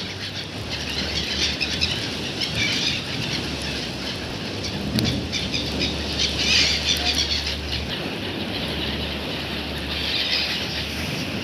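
A flock of gulls calling with shrill, squealing cries in three bunches: near the start, a little past the middle, and near the end. Under the calls runs a steady low rumble of wind.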